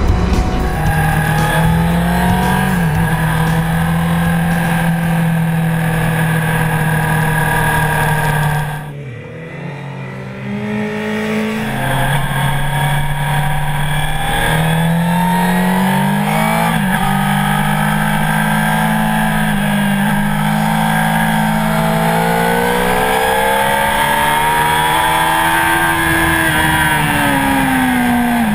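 Honda CBR1000RR Fireblade's inline-four engine at speed on track, heard from the bike. The engine holds a steady pitch, drops away briefly about nine seconds in, then rises and falls through the revs, with a long climb in pitch that peaks and falls away near the end.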